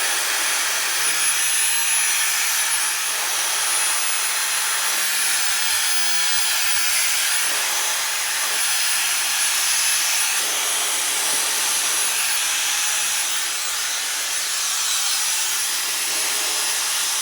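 Dyson hair dryer running steadily, a continuous rush of blown air with a thin high-pitched whine.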